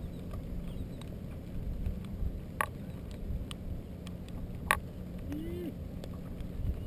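Wind rumbling on the microphone over choppy water around a kayak, with two sharp clicks about two seconds apart.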